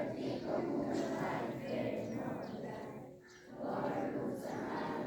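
Many schoolchildren's voices together in unison, phrase after phrase, with a short break about three seconds in.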